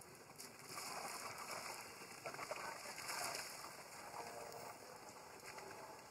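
Light splashing and sloshing of water as young long-tailed macaques swim in a shallow pond, with a few short splashes. Birds, doves among them, call faintly in the background.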